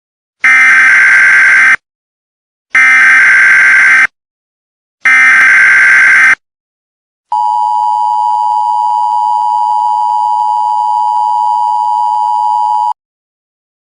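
Emergency Alert System alarm: three separate bursts of SAME header data tones, each a little over a second long, then the steady two-tone EAS attention signal for about five and a half seconds. This sequence marks the start of an emergency alert broadcast.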